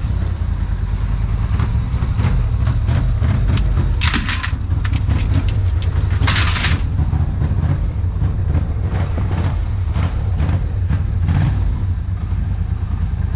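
A vehicle's engine running steadily with a heavy low rumble, overlaid by frequent rattles and knocks, with two louder clattering bursts about four and six seconds in.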